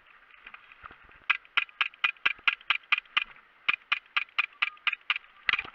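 Airsoft pistol fired in rapid single shots, about four a second: a string of nine sharp cracks, a short pause, seven more, then a quick cluster of shots near the end.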